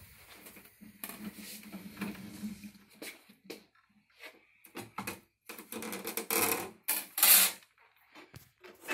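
Metal parts clattering and knocking as a stop-arm air unit and its mounting bracket are handled and set against the steel stop-arm frame. Scattered light clicks, with a louder run of clatter about six seconds in.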